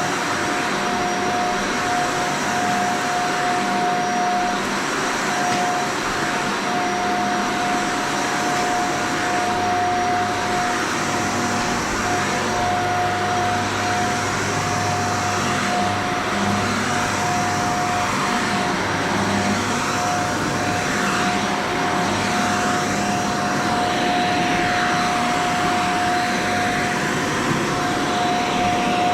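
Shark Vertex vacuum cleaner running steadily over carpet, a constant motor noise with a steady whine above it.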